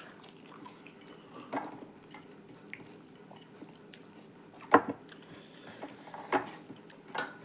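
Dishes and cutlery clinking and knocking at a meal: several short, scattered clinks, the loudest about halfway through.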